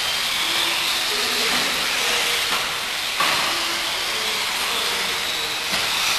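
Electric RC racing buggies running laps: a steady high hiss of motors and drivetrains, with short whining notes that come and go as the cars speed up and slow down.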